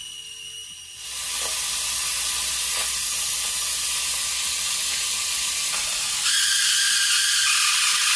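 Shop compressed air rushing through an Airlift venturi coolant purge tool, a loud steady hiss as it pulls vacuum on the truck's cooling system to clear airlocks before refilling. The hiss grows louder about a second in, steps up again near the end, then cuts off sharply.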